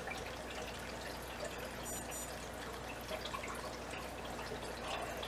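Water in a fish tank trickling and dripping steadily, with a faint low hum underneath.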